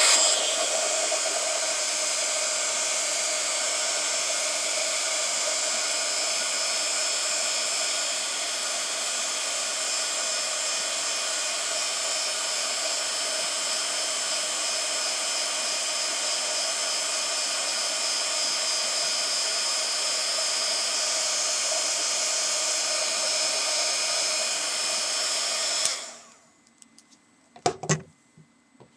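Handheld embossing heat gun blowing steadily with a fan whine, heating a Magic Stamp (Penscore) foam block so the old impression smooths out for reuse. It switches off abruptly about 26 seconds in, followed by a few light knocks.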